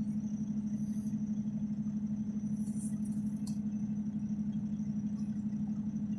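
Semi-truck's diesel engine idling at a standstill: a steady low drone with an even pulse.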